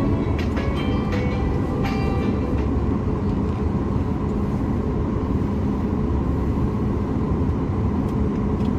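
Steady low rumble of cabin noise inside a Boeing 737 MAX 8 on the ground before takeoff, from its CFM LEAP-1B engines at idle and the airframe, even in level throughout. A few faint short tones sound in the first couple of seconds.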